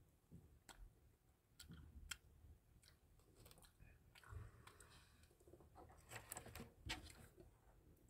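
Near silence, broken by faint, scattered clicks and small handling noises.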